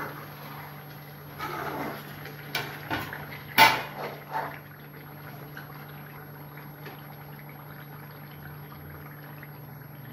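Chicken pieces simmering in oil and their own juices in an aluminium kadai, nearly done, while a metal spoon stirs and scrapes them, with one sharp clink of spoon on pan a little over a third of the way in. A steady low hum runs underneath.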